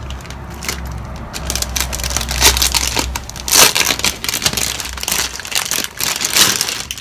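Packaging crinkling and rustling as an order is unwrapped by hand: an irregular run of crackles that gets busier after about a second and a half.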